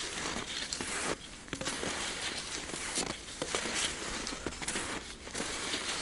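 Skis crunching and squeaking over dry, frozen snow in uneven strides, with short pauses about every two seconds.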